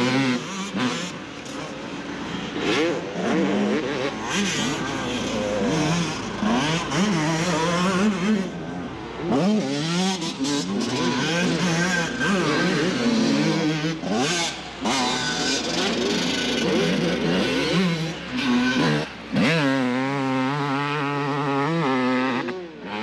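A 1998 Yamaha YZ250's single-cylinder two-stroke engine under hard throttle on a motocross track, its pitch climbing and dropping again and again with throttle and gear changes.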